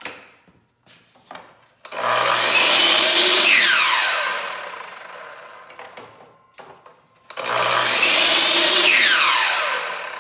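Milwaukee sliding compound miter saw making two cuts through MDF crown moulding. Each time the motor starts suddenly, the blade cuts through, and then a whine falls steadily in pitch as the blade spins down. Light clicks of handling come before the first cut.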